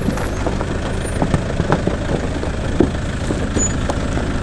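Off-road 4x4 vehicle on the move: a steady engine and road rumble with many scattered short knocks and rattles.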